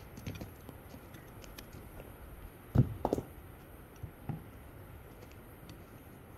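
A few dull thumps on a blue plastic water cooler jug as a small child handles it and knocks on its lid, the loudest about three seconds in, with light clicks in between.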